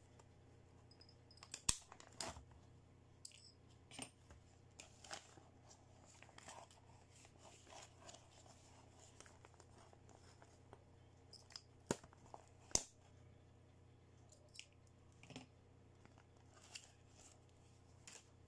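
Small plastic toy pieces and plastic packaging handled by hand: scattered light clicks and taps, with a few sharper clicks about two seconds in and twice around twelve seconds.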